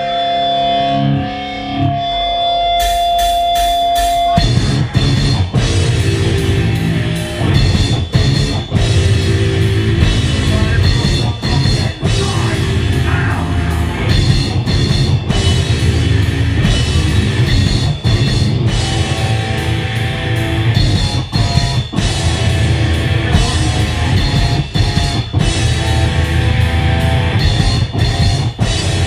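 Live heavy metal band playing: held electric guitar tones ring for about four seconds, then distorted guitars, bass and a drum kit with cymbals all come in together. The drum kit is close to the microphone.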